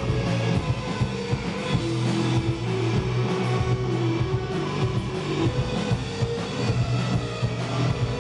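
Live rock band: electric guitar played over a drum kit, with sustained chords and a steady stream of drum hits.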